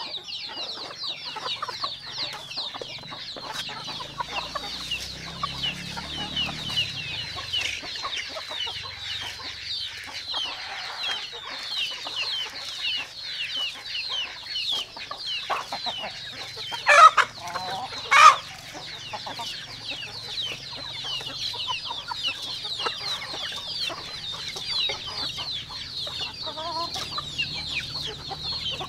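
Chickens calling: a steady din of many short, high chirps, with two louder calls a little over a second apart just past the middle.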